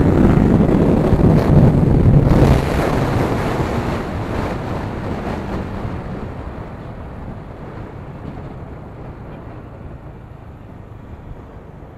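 Wind rushing over a motorcycle-mounted camera's microphone at about 135 km/h on a Yamaha R15 V3. The noise drops off sharply about two and a half seconds in and then fades steadily as the bike slows.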